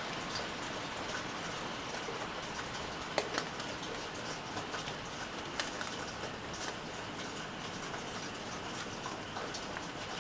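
Steady rain falling, with irregular sharp drip taps now and then.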